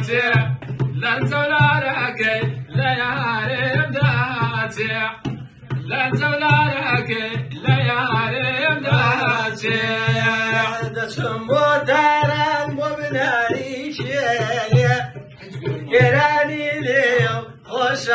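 A man singing a melismatic Kurdish folk song, his voice bending and ornamenting the melody, with a small hand-held frame drum beating a steady rhythm underneath. Brief breaks between sung phrases come about 5 and 15 seconds in.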